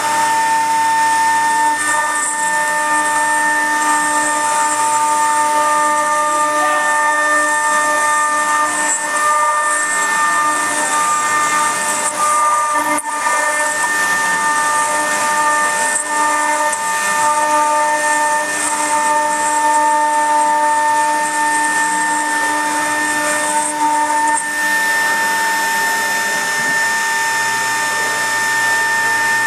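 Stone CNC router spindle whining steadily at high speed as its pointed engraving bit cuts a stone slab under coolant, over a steady hiss, with a brief dip about halfway through.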